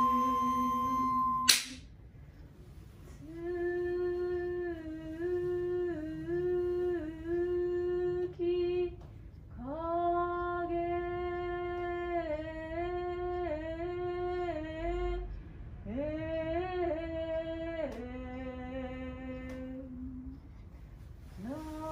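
A ryuteki flute note ends about a second in with a sharp click. Then a woman sings a slow shirabyoshi song in long held notes that step up and down with small wavers, in several phrases with short breaks between them.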